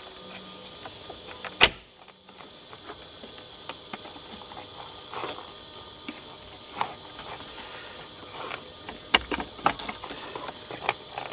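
Scattered knocks and clicks of parts and hand tools being handled during dashboard and A/C evaporator case disassembly: one sharp knock about a second and a half in, and a quick run of clicks and taps near the end, over a steady high-pitched background tone.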